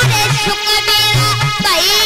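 Live Indian folk music: a melody with sliding, ornamented notes over a steady, repeating hand-drum beat.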